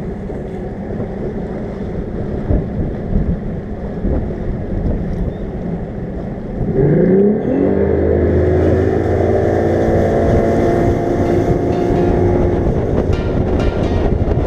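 Bass boat's outboard motor running under way, with wind buffeting the microphone. About seven seconds in the engine revs up, its pitch rising quickly, then holds steady at a higher speed and gets louder.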